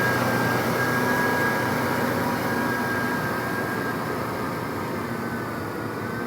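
Kubota M6040SU tractor's diesel engine running steadily while ploughing, slowly getting quieter.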